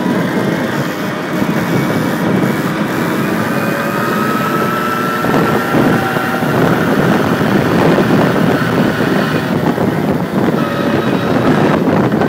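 Yamaha PW50's small two-stroke single-cylinder engine running hard as the little dirt bike is ridden along, its pitch climbing over the first few seconds and then levelling off.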